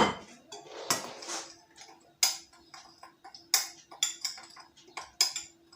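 Kitchen utensils and a dish clinking and clicking while fish is being seasoned: a sharp knock at the start, a short hiss about a second in, then a string of irregular light ticks.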